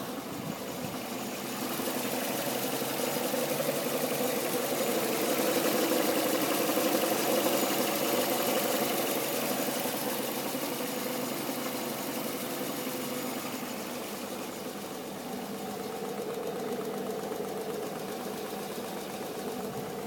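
Peugeot 307 engine idling while the fuel vapour adsorber (charcoal canister) purges, adding a hiss that swells a couple of seconds in and dies away later. This is the normal working sound of the evaporative system drawing petrol fumes back to the tank, not a fault.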